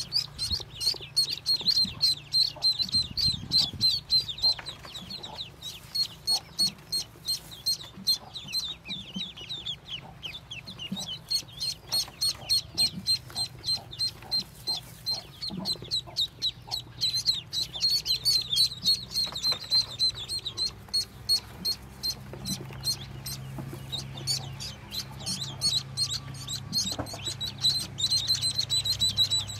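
A brood of Muscovy ducklings peeping continuously: fast, high, thin peeps, several a second, from many chicks at once.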